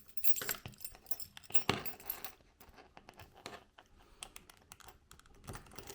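Metal keys and a split key ring clinking and jingling as they are handled while the ring is threaded back onto the key. The light clicks come thickest in the first couple of seconds, then fall sparse, with a few more near the end.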